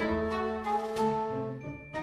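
Orchestral background music.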